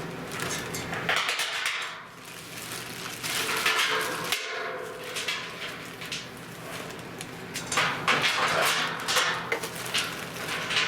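Loose metal bolts and hardware clinking and rattling as they are handled, in irregular bursts with a few sharp clicks near the end.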